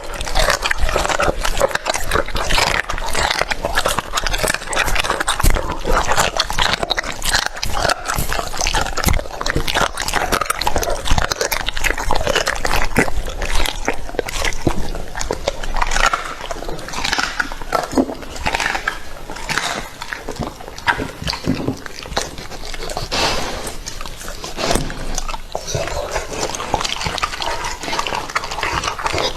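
A dog chewing and crunching raw chicken, with a constant run of bites and chews.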